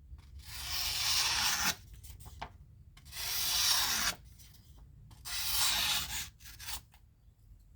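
Sitivien ST131 folding knife with a mirror-polished edge slicing through paper: three long cuts, each about a second of dry rustling, with short pauses between them.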